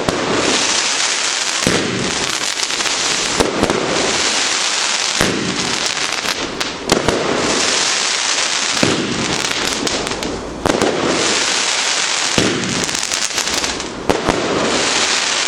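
Celtic Fireworks 'Jelly Beans' 30-shot fan cake firing a steady sequence of shots, a new one about every second and a half to two seconds, over a continuous dense crackle.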